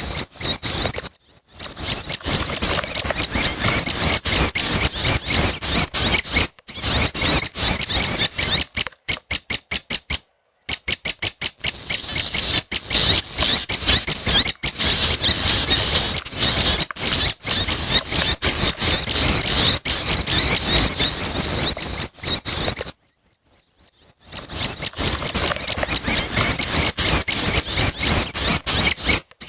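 Young prinia (prenjak) birds giving rapid, high-pitched chattering and ticking calls, nearly nonstop. There are brief pauses about a second in and about three-quarters of the way through, and a run of evenly spaced ticks about a third of the way in.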